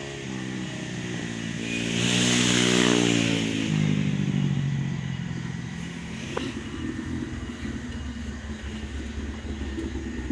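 Motor vehicle engine rising in pitch and loudness to a peak a couple of seconds in, then sliding down in pitch as it eases off, leaving a lower steady rumble. There is a single sharp click about six seconds in.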